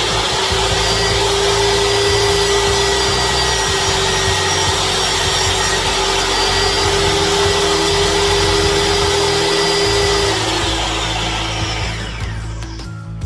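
DeWalt DWE7492 10-inch table saw running at full speed with a steady whine. It is switched off about ten seconds in, and the whine falls in pitch as the blade spins down.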